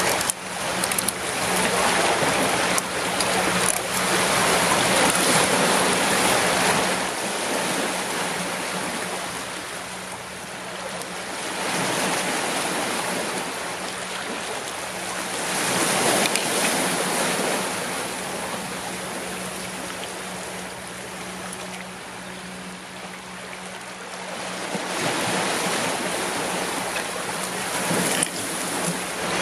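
Sea surf washing against a rocky shore, swelling and ebbing slowly as each wave comes in.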